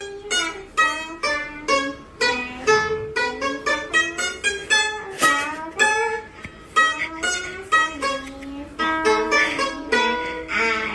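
Plucked-string music: a quick melody of short picked notes, several a second, some of them bending in pitch.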